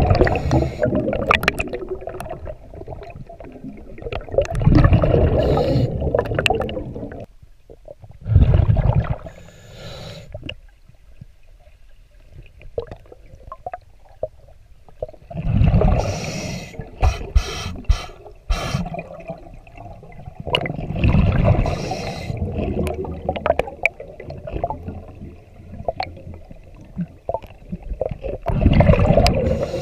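Scuba diver breathing through a regulator underwater, heard through the camera housing: about six bursts of exhaled bubbles, one every four to seven seconds, with quieter breathing between.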